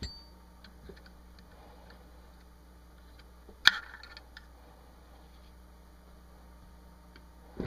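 Light metal clicks and scrapes of a Smith & Wesson M&P15 Sport AR-15 being taken apart by hand: the bolt carrier slid out of the upper receiver and the charging handle drawn back out. One sharp metallic click, the loudest sound, comes about three and a half seconds in.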